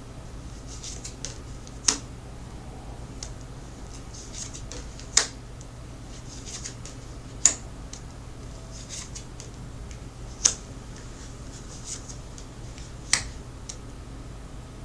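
Tarot cards being handled and laid out on a table: five sharp clicks about two to three seconds apart as cards are put down, with soft rustling and sliding between them, over a low steady hum.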